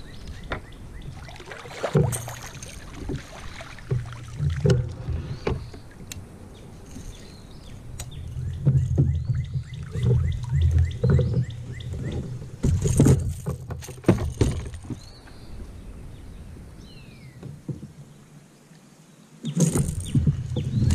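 Irregular knocks, clunks and splashes as a hooked fish is fought alongside a fishing kayak and scooped into a landing net, with rod, net and gear banging against the kayak.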